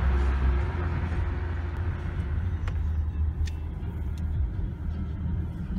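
Steady deep rumble of a car's engine and tyres, heard from inside the moving car's cabin, louder in the first second, with a few light clicks.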